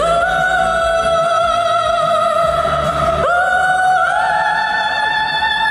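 Background music: a high singing voice holding long notes with vibrato, sliding up into each new note, over soft accompaniment.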